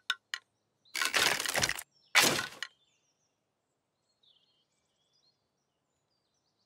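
Cartoon sound effect of a twig nest breaking apart: a few quick clicks at the start, then two short noisy crashes about a second apart, followed by faint high bird calls.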